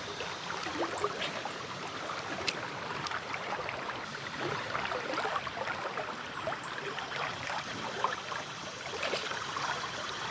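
Creek water running steadily, with a few light clicks, the sharpest about two and a half seconds in and another near eight seconds.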